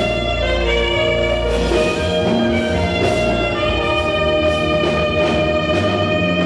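Live African praise band music: held melodic notes over steady bass and drums.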